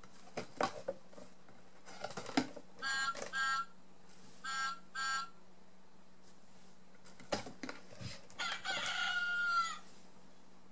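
Recorded rooster crowing played from a children's sound book's button speaker, as several short calls with a longer one near the end, among clicks of buttons being pressed and pages being turned.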